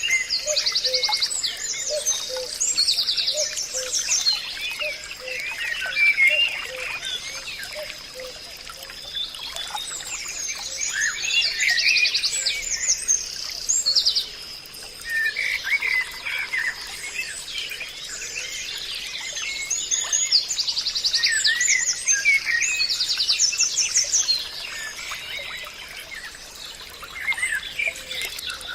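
Several wild birds singing and calling: rapid high trills and short chirps that come in clusters every few seconds, over a thin, steady high tone.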